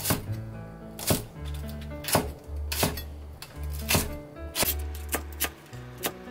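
Kitchen knife chopping on a cutting board, single sharp cuts about once a second that quicken to several quick cuts near the end, over background music with a steady bass line.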